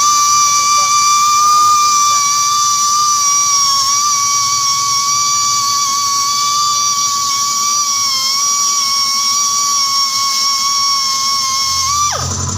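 High-speed rotary sanding tool running with a steady high-pitched whine, sanding down a tire sidewall repair until the hole no longer shows, then winding down near the end.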